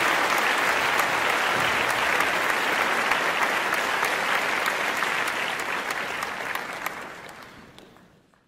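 Audience applauding, a dense steady patter of many hands clapping that fades out over the last two seconds or so.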